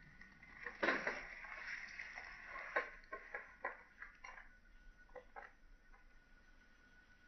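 Light clicks and knocks of a pump-action shotgun being handled between shots: a cluster of louder knocks about a second in, then a string of about ten small sharp clicks over the next few seconds.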